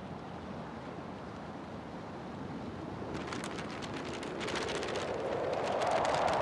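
Wind and sea noise on a ship's deck: a steady rushing that swells louder over the last few seconds, with rough crackles from about three seconds in.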